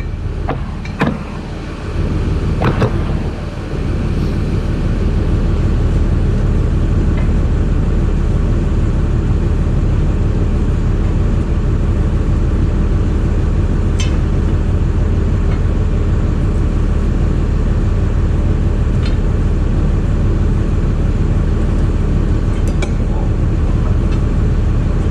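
An engine running steadily at a constant idle, with a few short metallic clicks now and then.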